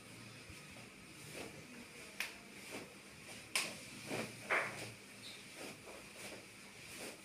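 Several short clicks and knocks during a chiropractic adjustment, with the sharpest about two and three and a half seconds in.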